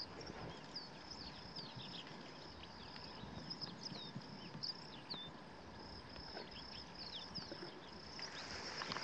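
A faint, steady high-pitched insect drone with many short, quick bird chirps over it.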